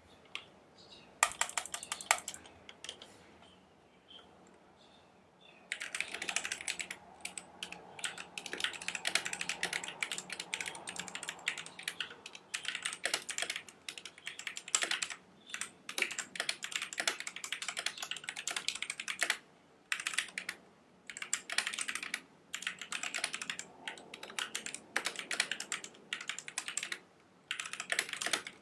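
Typing on a Royal Kludge RK71 mechanical keyboard with brown tactile switches and a tape mod. A few keystrokes come about a second in, then a short lull, then fast, continuous typing with brief pauses.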